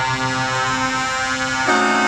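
Truck air horns blowing a steady held chord, switching to a new, slightly louder chord near the end.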